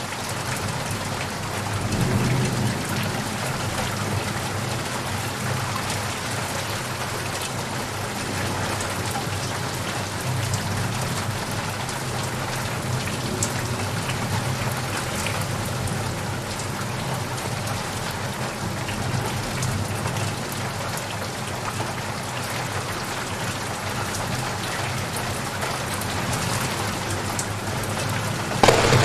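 Steady rain falling on surfaces, with a low rumble of thunder swelling about two seconds in and a loud thunderclap breaking out just before the end.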